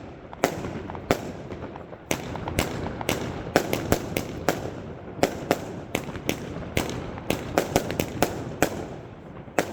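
Lesli 'City of Pyro' 75-shot compound firework cake with 25 mm tubes firing shot after shot: sharp bangs about two a second, unevenly spaced, over a continuous hiss and rumble.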